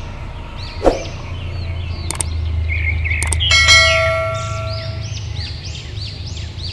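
Subscribe-button animation sound effect: a couple of sharp clicks, then a bell-like ding about three and a half seconds in that rings on for over a second. Short chirps like a bird's repeat throughout over a steady low hum.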